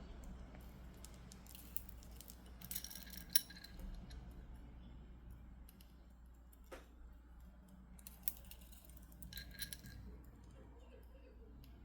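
Stone beads and spacers clicking and clinking together as a bead bracelet is handled and restrung, in two short clusters about three seconds in and around nine seconds, with a single click in between.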